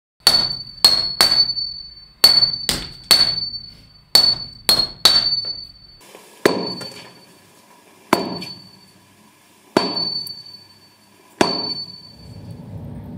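Swordsmith's hammer striking metal, each blow ringing with a clear metallic tone: three quick groups of three blows, then four single blows about a second and a half apart.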